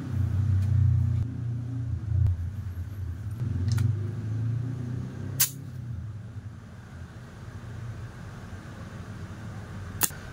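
Gas can charging an airsoft gas-blowback rifle magazine through its fill valve: a low, wavering rumble of gas flowing in, which eases off about halfway through. Short sharp spurts of escaping gas come where the nozzle seats and lifts, the last one near the end as the can comes off the valve.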